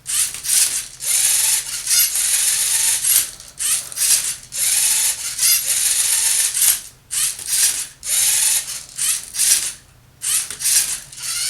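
LEGO Mindstorms NXT 2.0 robot's motors and Technic gears running in repeated short bursts, each about half a second to a second long with brief pauses between, as the turntable turns and the arm flips a Rubik's Cube during a solve. A faint motor whine rises in some bursts.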